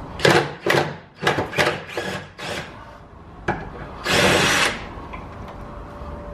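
A power tool on a socket in short bursts, working out the corroded 12 mm bolts of a rusty rear W brace: about seven quick bursts, a sharp click, then one longer, louder burst about four seconds in.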